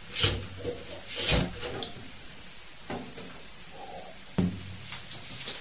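A few brief knocks and rubbing noises, like wood or a drawer being moved: two louder ones in the first second and a half, fainter ones after, and a sharp click about four and a half seconds in.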